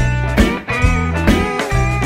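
Blues-rock band playing: electric guitar with bending notes over a repeating bass figure and a drum beat about twice a second.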